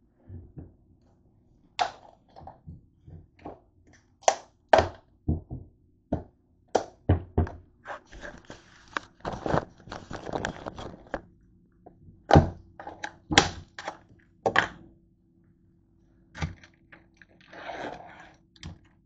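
A plastic spread tub and its lid being handled on a kitchen counter: irregular knocks, clicks and clatters, with stretches of plastic rustling and scraping as the lid is worked off.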